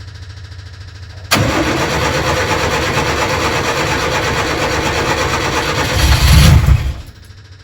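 Freshly rebuilt Nissan Micra stock car engine firing up on its first start, running loud, revving briefly near the end, then stopping suddenly.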